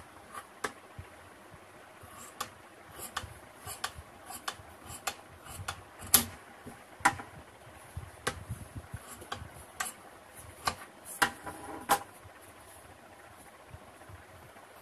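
Large tailor's scissors cutting through fabric: irregular crisp snips as the blades close, several with a brief metallic ring.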